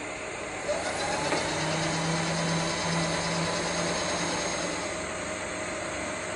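Multi-purpose milling machine running: a steady mechanical hum and whir, with a short rising whine about a second in and a steadier hum that eases off after about four seconds.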